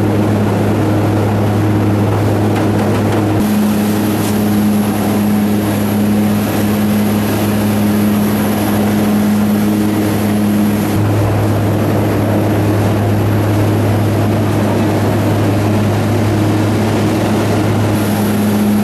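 Propeller aircraft's engines droning steadily, heard from inside the cabin: a loud, even hum with a higher note that fades and returns a few times.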